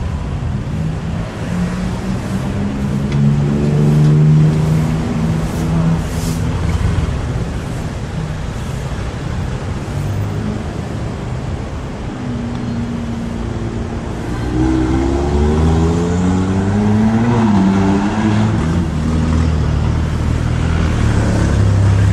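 Busy street traffic with car and motorbike engines running close by. Around the middle of the clip several engines rise in pitch together as vehicles accelerate away.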